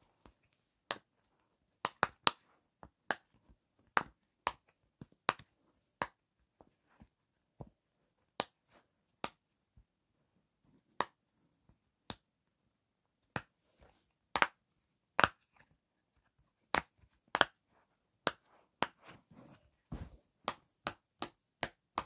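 A long run of sharp clicks, irregularly spaced at roughly two a second, some much louder than others, with a quicker flurry near the end.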